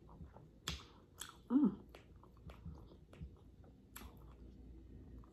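Close-miked chewing of a soft bread roll, with sharp wet mouth clicks scattered through and a brief hummed "mm" about one and a half seconds in.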